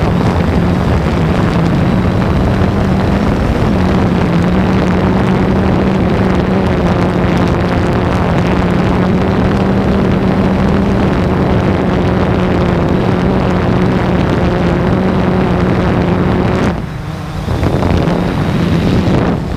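Quadcopter drone's motors and propellers humming steadily at one pitch in flight, with wind rushing over the microphone; the hum drops away briefly about three seconds before the end and then comes back.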